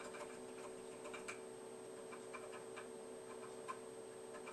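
Faint, irregular clicking of keystrokes on a vintage computer keyboard as control-key commands move the editor's cursor around the screen, over a steady low hum.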